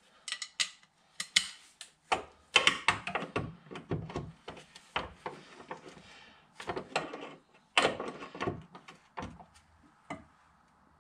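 Clicks and metallic clatter of a socket and long breaker bar being fitted to and worked on a 17 mm bolt under a car: a run of sharp ticks and knocks in clusters, loudest about two and a half seconds in and again around eight seconds in, as the bolt is broken loose.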